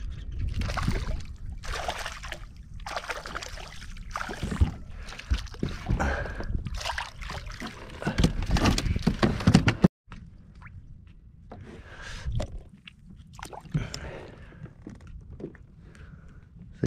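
Fish being landed into a plastic kayak, with irregular splashing, knocking and thrashing against the hull and deck. Quieter handling clicks and rustles follow after a short break.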